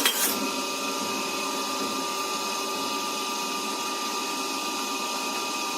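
Steady motor whir with a faint constant whine, even throughout. A spoon clatters briefly against the mould right at the start.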